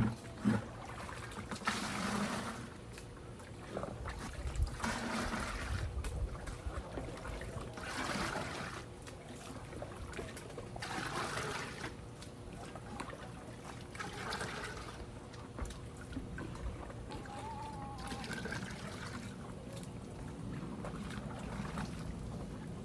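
Water pouring and trickling in short bursts a few seconds apart, with a sharp knock near the start.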